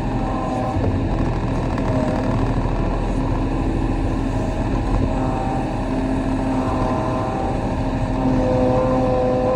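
Kobelco SK35 mini excavator's diesel engine running steadily under working load, with whining tones above it that come and go and shift in pitch as the hydraulics work.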